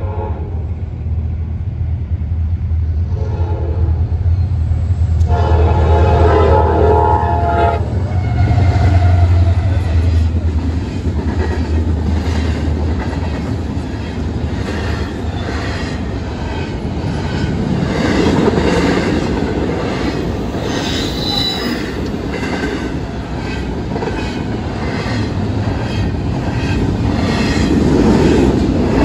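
CSX freight train passing a grade crossing at speed. The diesel locomotives rumble deeply, and the horn blows for a couple of seconds about five seconds in. Then the intermodal container cars go by with a steady clickety-clack of wheels over the rail joints.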